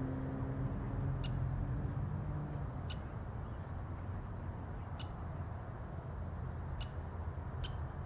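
Outdoor ambience: a steady low rumble with a low hum that fades out about two seconds in, and a bird's short high chirps every second or two.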